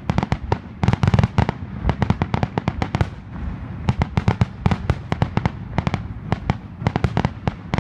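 Aerial firework shells bursting in quick succession: a dense string of bangs and crackles, thickest about a second in, with a brief lull around three seconds.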